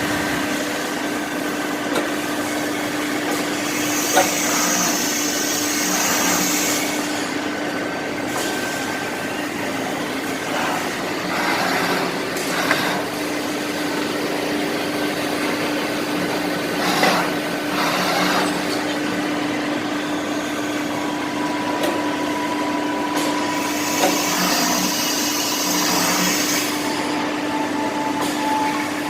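Fadal vertical machining center running with a steady hum and a constant tone, with a spell of high hissing twice and a few light knocks.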